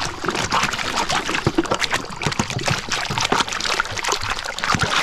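Hands splashing and sloshing through shallow muddy water, a busy run of small irregular splashes and trickles.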